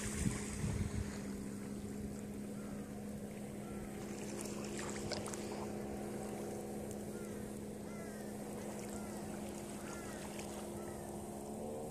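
A steady low drone of several held tones that bends upward near the end, under a light wash of wind or water. From about three seconds in, short faint bird chirps repeat over it.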